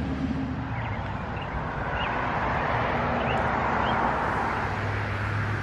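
Steady outdoor background noise, like distant road traffic, with several short faint chirps scattered through it and a low hum coming in near the end.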